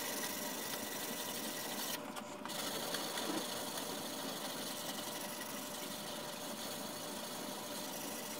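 120-grit sandpaper rubbed in rapid back-and-forth strokes along the steel edge of a drawknife, a steady scraping with a short break about two seconds in. The coarse grit is cutting small chips out of the cutting edge.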